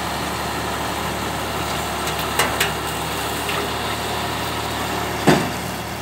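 Tractor engine running steadily with a PTO-driven Redlands round baler working behind it. Two sharp clicks come about two and a half seconds in, and a louder knock comes near the end.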